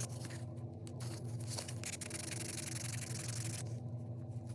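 Abrasive rubbing on the brooch's pot metal, heard as a dry hiss: briefly at the start, then a steadier stretch from about a second in that stops a little before the end. A steady low hum runs underneath.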